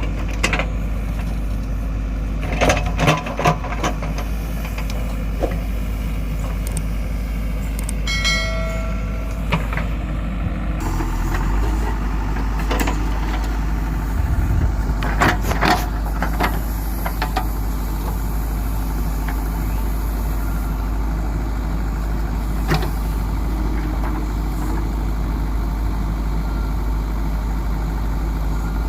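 JCB 3DX backhoe loader's diesel engine running steadily under work, with scattered clanks and knocks. A brief high-pitched tone sounds about eight seconds in.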